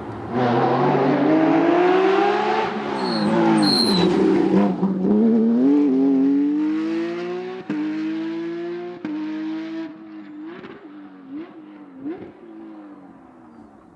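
A rally car's engine revving hard as it comes past, its note climbing, dropping at gear changes and climbing again, with a short high squeal about three to four seconds in. From about ten seconds in, the engine fades and wavers as the car drives away.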